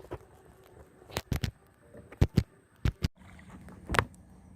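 A series of about eight sharp knocks and thumps, some in quick pairs, over faint outdoor background noise.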